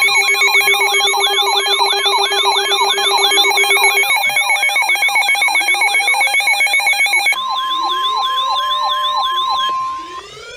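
Weather alert radio alarms sounding for an incoming tornado warning: overlapping electronic siren-like wails sweep about twice a second over steady beeping tones. Past the middle a single steady tone, the NOAA Weather Radio warning alarm, joins in, and everything cuts off suddenly near the end.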